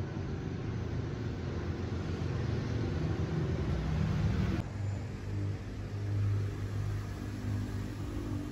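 Low, steady engine rumble with a hum, changing abruptly about four and a half seconds in to a steadier low hum.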